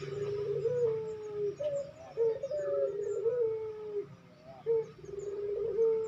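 Barbary dove (puter) cooing over and over: each coo is a short note followed by a long, slightly falling drawn-out note, repeated about every second and a half.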